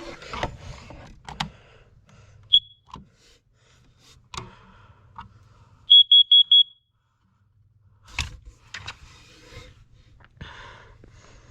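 Carbon monoxide detector sounding its test alarm: one short high beep a couple of seconds in, then a group of four quick high beeps just past the middle, the four-beep pattern of a CO alarm. A few knocks and clicks fall around it.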